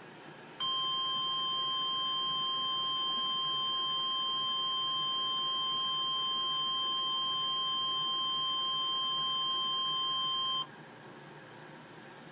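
Emergency Alert System attention tone for a National Weather Service warning: one continuous high single-pitch tone held steady for about ten seconds, cutting off sharply near the end. It signals that a severe thunderstorm warning message follows.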